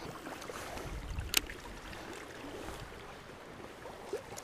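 Steady rush of river water with wind on the microphone, and one sharp click about a second and a half in.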